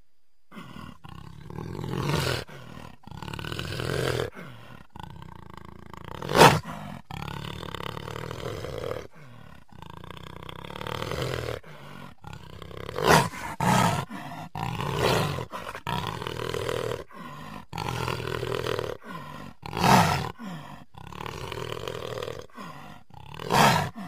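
Jaguar roaring over and over, a run of separate loud calls with short breaks between them, the loudest about a quarter of the way in.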